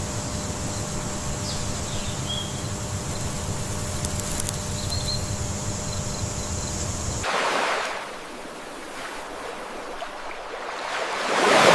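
A steady low mechanical hum with a faint high whine, which cuts off abruptly about seven seconds in. Then surf washes onto the beach in two swells, the second the louder.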